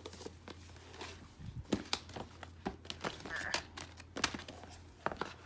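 Paperback workbooks being handled and slid into a clear plastic storage tote: paper rustling with scattered light taps and knocks against the plastic.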